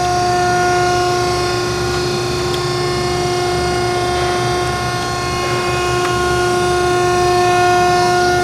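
Landis 1R universal cylindrical grinder running without a workpiece, its motors giving a steady whine over a low hum: the hydraulic pump motor and the grinding wheel drive, running smoothly.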